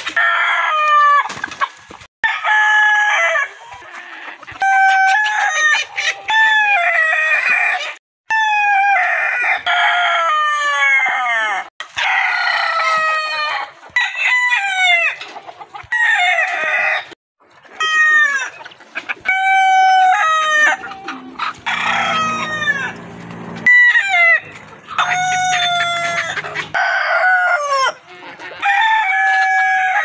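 Several roosters crowing over and over, one crow after another and sometimes overlapping, with short breaks between.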